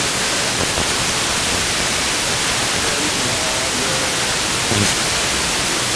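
Hiss and static from a Blaupunkt FM car radio tuned to 88.3 MHz: the distant station, received by sporadic-E, is too weak to come through, leaving steady noise with only faint traces of a voice beneath.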